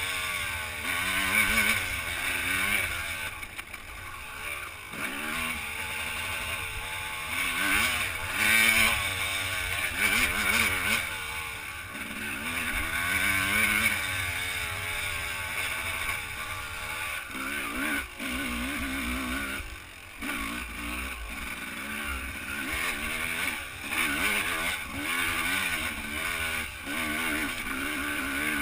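Dirt bike engine under load on a trail, its revs rising and falling every second or two as the throttle is worked.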